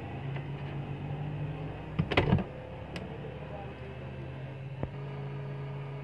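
Hot-air rework station blowing and humming steadily, used to heat a keypad phone's CPU and dry out water damage. A brief clatter of handling comes about two seconds in, with a couple of light clicks later.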